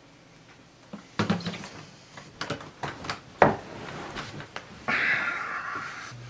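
Handling noise in bed: a series of knocks and clicks, the loudest a sharp knock about three and a half seconds in, as a phone is set down on a wooden bedside table and the sleeper shifts, followed near the end by a brief rustling hiss of bedding and hands moving.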